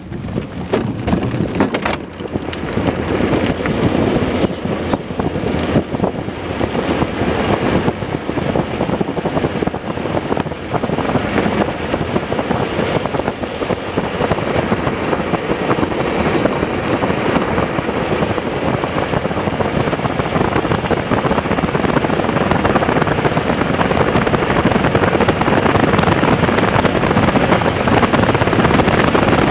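Engineless soapbox cart rolling fast downhill on asphalt: a steady rumble of its wheels on the road mixed with wind buffeting the onboard microphone, slowly growing louder as the cart gathers speed.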